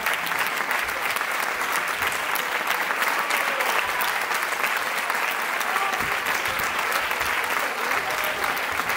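Concert audience applauding steadily, with a few voices calling out among the clapping.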